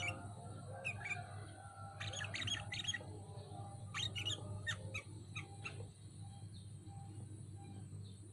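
Sooty-headed bulbul (kutilang) singing: bursts of quick, sharp chirps and whistled notes, coming in clusters over the first six seconds, then dropping away.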